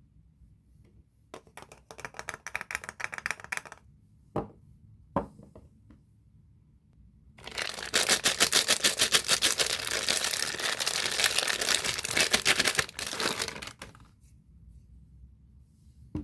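Soap wrapping being crinkled and pulled open by hand: a short run of rapid crinkling, two single clicks, then a longer, louder stretch of dense crinkling from about halfway in.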